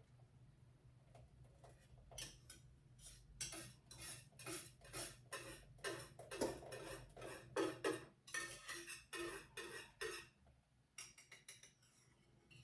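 Kitchen utensil scraping and knocking against a sieve as thick lemon curd is pressed through it to strain it. A run of quick, repeated strokes starts about two seconds in and stops about ten seconds in, with a few fainter ones near the end.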